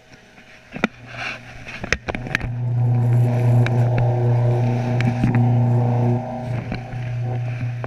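A machine's steady low hum on one pitch, starting about a second in, loudest through the middle and easing a little near the end, with several sharp knocks and clicks over it.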